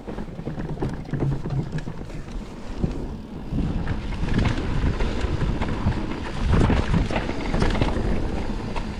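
Forbidden Dreadnought mullet mountain bike riding down a rough dirt trail: tyres rumbling over the ground, with frequent sharp clicks and rattles from the bike, and wind on the microphone. It gets louder about three and a half seconds in.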